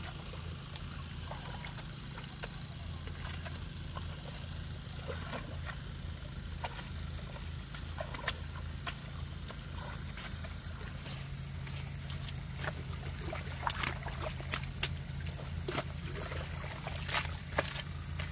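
Hoe blades working wet mud and water in a flooded rice paddy, packing up the earthen field edge: squelches, sloshes and sharp wet slaps that come more often in the second half, over a steady low hum.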